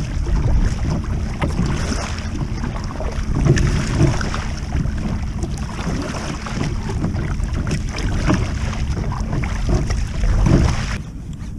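Double-bladed kayak paddle stroking through choppy sea water, its blades splashing at an uneven pace, under heavy wind buffeting on the microphone. The sound cuts off abruptly near the end.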